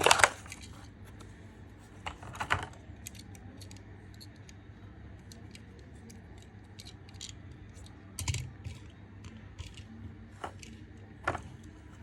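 Small diecast metal toy cars being handled, giving scattered light clicks and ticks of metal and plastic parts, with a few louder knocks about two and a half, eight and eleven seconds in.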